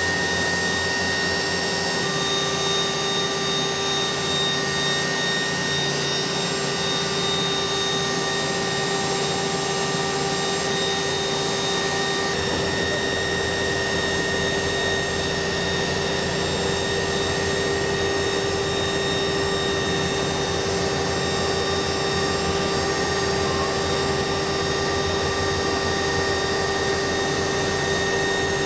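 KUH-1 Surion helicopter's twin turboshaft engines and rotor running steadily in flight: a constant turbine whine of several steady high tones over a rushing noise.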